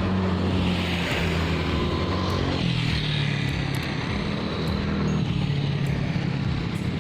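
A motor vehicle's engine running steadily, with a hiss that swells and fades in the first few seconds.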